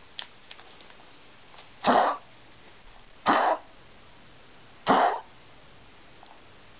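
A pet coughing three times, about a second and a half apart, each cough short and sharp.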